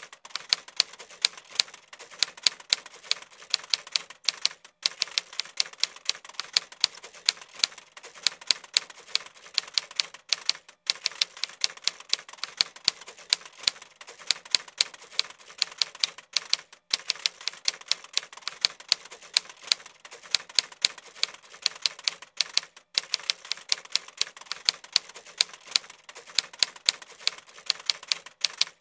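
Typewriter sound effect: rapid mechanical key strikes clacking several times a second, with short breaks about every six seconds.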